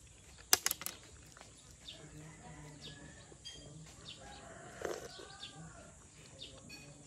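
Chickens clucking faintly in the background, with small birds chirping. A quick run of sharp clicks about half a second in.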